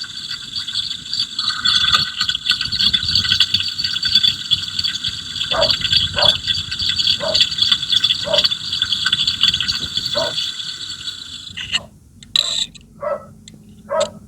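Fuel injector of a running 2013 Toyota Avanza engine, heard through an electronic stethoscope: a rapid, even clicking as the injector opens and closes, which the mechanic judges still normal. The clicking cuts off near the end, and a dog barks a few times.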